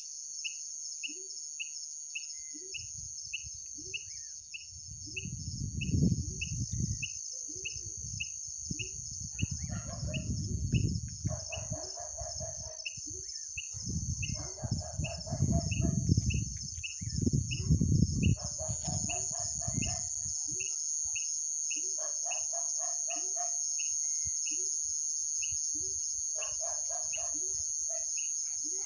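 Roosters crowing several times, each crow a second or two long, over a steady high-pitched insect drone and a regular chirp repeating about twice a second. A low rumbling noise comes and goes in the first half.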